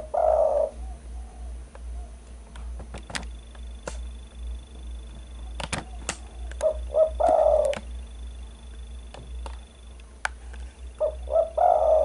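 Spotted dove cooing: its phrase of a couple of short notes followed by a longer coo, heard three times about five seconds apart, at the start, about seven seconds in and near the end. A few short sharp clicks fall between the phrases.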